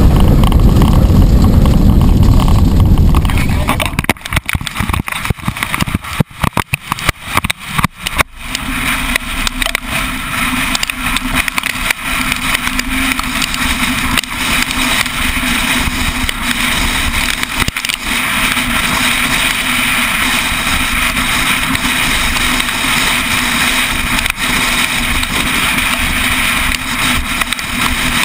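Vehicle driving at speed: a loud low wind rumble on the microphone, broken up by several dropouts a few seconds in, gives way about eight seconds in to a steady drone of engine and road noise with a low hum.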